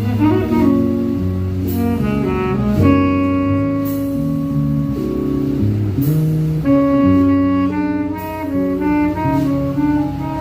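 Live jazz quartet of saxophone, keyboard, bass and drums playing a slow ballad, with sustained saxophone notes over the chords and a cymbal stroke about every two seconds.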